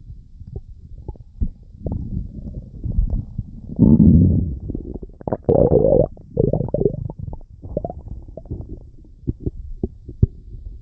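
Human stomach rumbling and gurgling, with many short pops and bubbling sounds. The loudest, longest gurgle comes about four seconds in and lasts for roughly three seconds.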